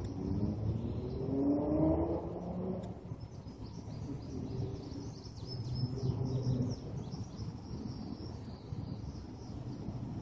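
2012 Ford Mustang's 3.7-litre V6 through a Pypes cat-back exhaust accelerating, its pitch climbing over the first two seconds or so, then running more steadily. Birds chirp throughout.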